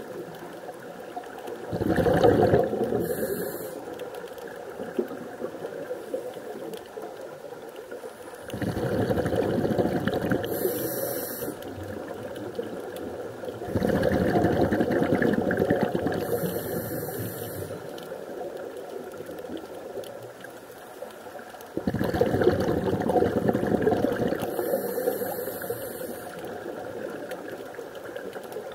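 Scuba diver breathing underwater through a regulator: four slow breaths, each a long surge of bubbling exhaust with a short high hiss partway through, several seconds apart.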